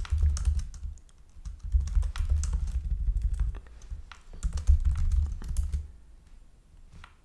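Typing on a computer keyboard: quick runs of key clicks with dull thumps, in three spells, tailing off near the end.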